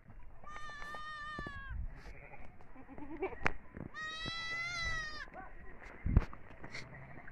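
Sheep and goats in a pen bleating: two long, wavering bleats, the first about half a second in and the second about four seconds in. Between them comes a sharp click, and about six seconds in there is a loud thump.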